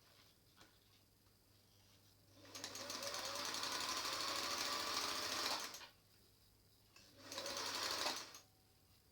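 Singer 449 sewing machine running and stitching in two runs, about three seconds then about one second, after a new top gear has been fitted in place of a broken one.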